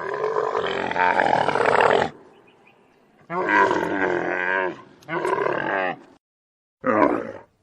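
Camel calling in four rough, wavering calls: a long one of about two seconds at the start, two shorter ones in the middle, and a brief one near the end.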